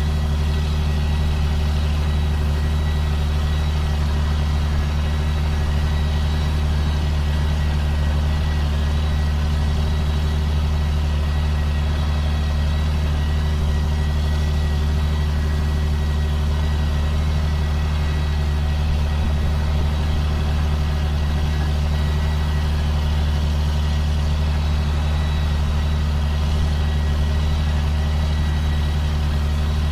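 Diesel engine of a 2005 John Deere sprayer running steadily, a constant low hum with a faint high steady whine above it.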